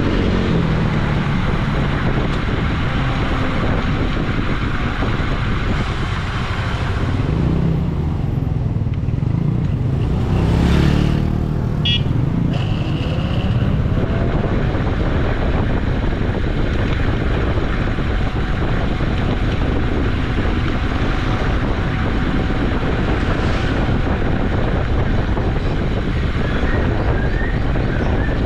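Steady rumble and wind noise from riding an Uwinfly DF5 electric bicycle, with a brief high beeping about twelve seconds in.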